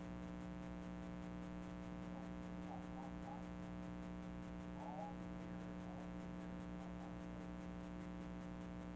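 Steady electrical hum with many overtones, unchanging throughout, with a few faint, indistinct sounds near the middle.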